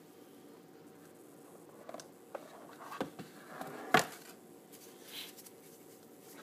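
A product box being handled and opened: a few light scrapes and clicks, one sharp click about four seconds in, then a short rustle.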